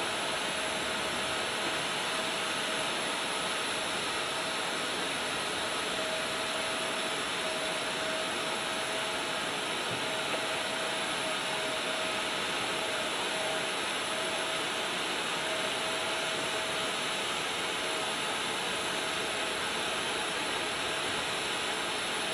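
A jet turbine running steadily: an even rush of noise with a faint, slightly wavering whine, holding the same level throughout.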